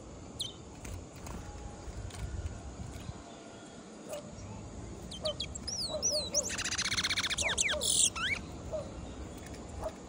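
A small dark caged songbird singing: a few sweeping whistled notes about halfway in, then a loud, rapid, buzzy trill lasting about a second and a half, followed by a few last notes.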